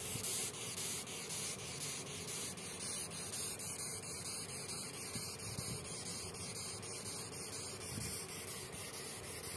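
Longhorn beetle stridulating: a hissy, rasping squeak repeated in short, evenly spaced strokes.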